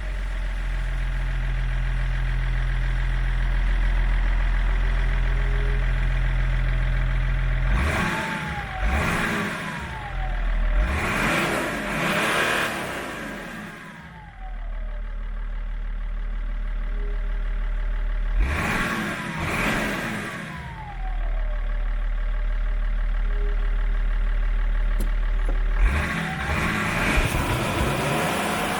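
BMW E46 330d's straight-six turbodiesel with a stock exhaust, idling just after starting, then revved in three bursts of a few seconds each. Between the bursts it drops back to a steady idle.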